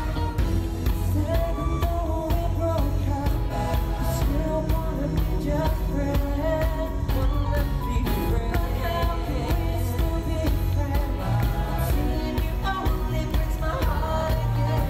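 Live pop music: a male vocal group singing in harmony over a backing band with a steady drum beat.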